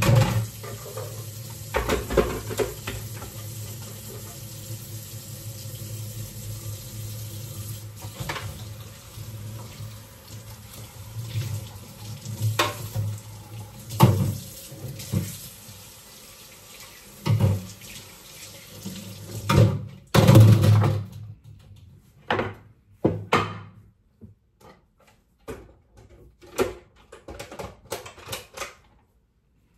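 Kitchen faucet running into a sink, with knocks and clatter of utensils being handled under the water. The water shuts off about two-thirds of the way through, and scattered clinks and knocks follow.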